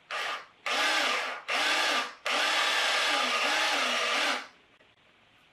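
A small electric motor, like a power drill's, running in four short bursts, the last about two seconds long, with its pitch wavering up and down.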